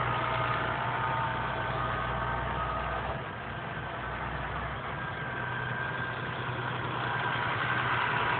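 A 6480 tractor's diesel engine running steadily as it rolls silage in the pit. It gets quieter about three seconds in and louder again near the end.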